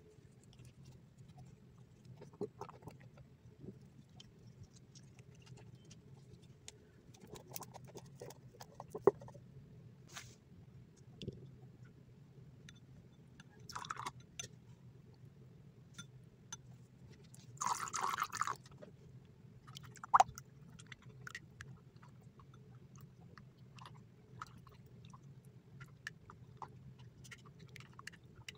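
Slime ingredients going into a cut-glass bowl. Water is poured in, splashing twice near the middle, and the second pour is the loudest sound. Scattered light clicks and taps of a silicone spatula against the glass as the liquid is stirred.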